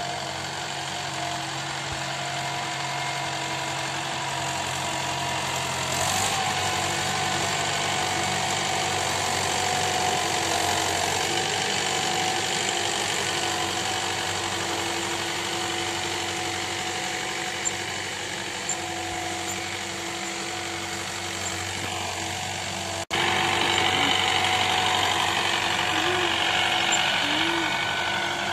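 Diesel farm tractor engine running steadily under load as it pulls a seed drill through tilled soil. The engine note steps up slightly about six seconds in. After a sudden break near the end the sound is louder and closer.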